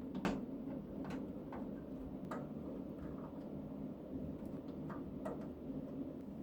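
Scattered light clicks and taps of computer parts being handled and fitted, the sharpest about a quarter second in, over a steady low hum.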